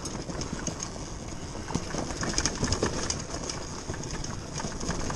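TM Racing MX250 dirt bike coasting downhill on a dirt trail with its engine off and in neutral. The knobby tyres rumble over dirt and twigs, while the chain and suspension rattle with many small knocks over the bumps. A steady high-pitched buzz runs behind it.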